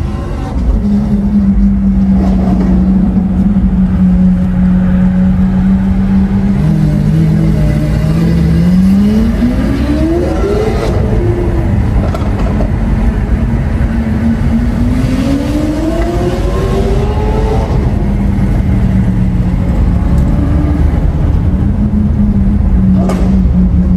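Lamborghini Aventador SV's naturally aspirated V12 with a Capristo exhaust running at a steady low drone. It revs up twice as the car accelerates, once about eight seconds in and again about fourteen seconds in, then drops back to a steady note.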